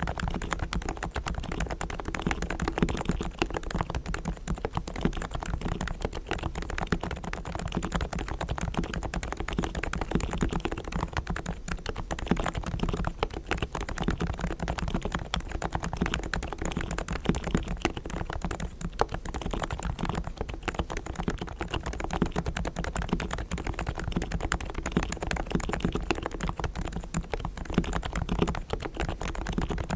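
Continuous rapid typing on a Realforce R3 tenkeyless keyboard with Topre 45 g low-noise electrostatic capacitive switches, fully lubed with Krytox and foam-dampened: a steady stream of soft keystrokes with no pause.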